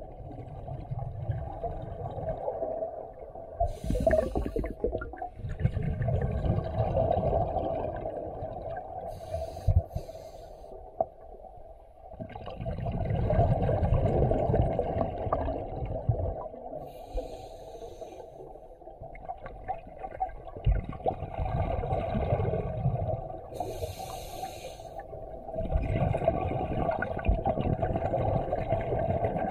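A diver breathing underwater through a scuba regulator: a short hissing inhale, then a long low rush of exhaled bubbles, repeating about every seven seconds.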